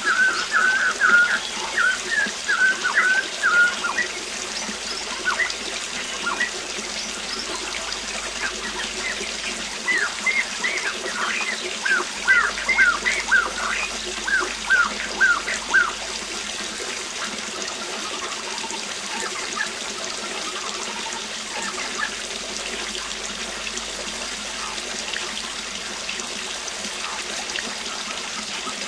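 Steady rush of a waterfall, with a bird calling in short, quick, repeated chirps in two bouts: during the first few seconds and again from about 10 to 16 seconds in.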